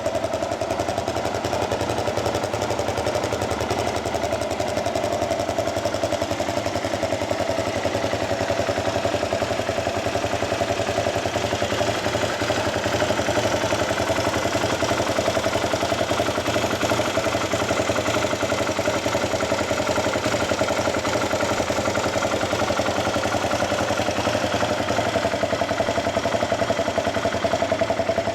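Yamaha WR250X 250 cc single-cylinder four-stroke engine running steadily at idle through an aftermarket Delta Barrel 4 slip-on silencer and Powerbox pipe, a fast, even exhaust pulse with no revving.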